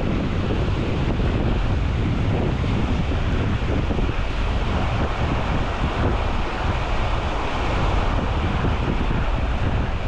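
Small sea waves breaking and washing up onto a sandy shore, with wind blowing on the microphone.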